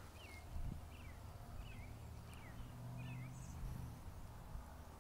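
A bird calling in the background, a string of short chirps about one every two-thirds of a second, fading out after about three seconds, over a faint low steady rumble.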